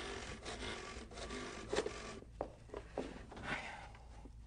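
Corded desk telephone being handled and dialed: soft rustling with a few light clicks.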